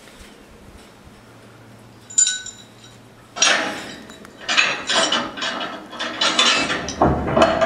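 Hard clinking and clanking: one sharp ringing clink about two seconds in, then a dense, irregular run of rattling clanks through the second half.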